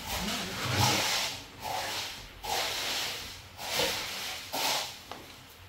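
A tool scraping and spreading wet cement across a floor, about five strokes in a steady rhythm, roughly one a second.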